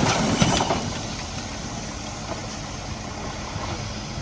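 A loud, noisy clatter that cuts off within the first second, then a vehicle engine idling steadily with a faint hum under outdoor noise.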